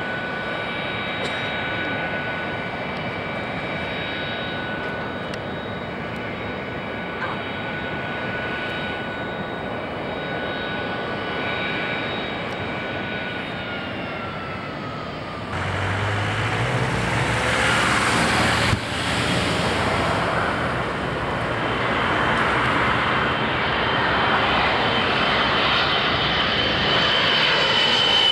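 Jet engines of a Britannia Boeing 767 taxiing, a steady whine with several high tones that fall away about fourteen seconds in. About halfway through, louder jet noise takes over, ending with an airliner passing low overhead on approach, a high whine held to the end.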